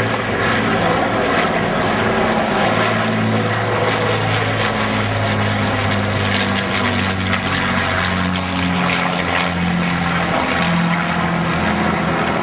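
Avro Lancaster bomber's four Rolls-Royce Merlin V12 piston engines running as it flies a low pass and heads away: a loud, steady propeller drone.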